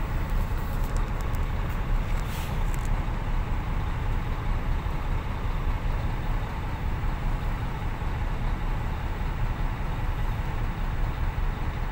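Heavy diesel truck engine idling steadily as a low, even rumble, heard from inside a truck cab, with a few light clicks in the first few seconds.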